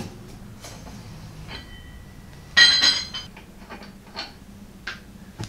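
Lug nuts being spun off a front wheel with a lug wrench: small metallic clicks and scrapes, and about two and a half seconds in one loud ringing metal clink, as of a nut or the wrench landing.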